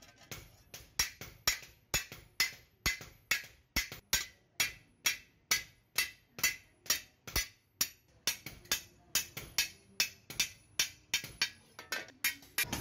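Hand hammer striking a steel hoe blade on a small anvil, blow after blow in a steady rhythm of about two a second, each a sharp metallic strike that dies away quickly.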